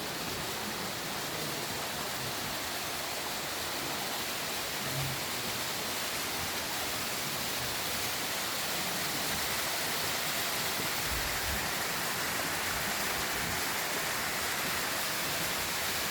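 Waterfall: a steady, dense rush of falling water that grows slightly louder toward the end.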